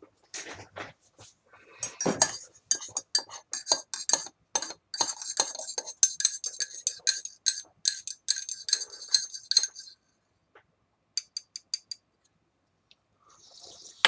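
A metal teaspoon stirring milk into tea in a ceramic mug, with quick, ringing clinks against the sides for about eight seconds, then a few separate taps.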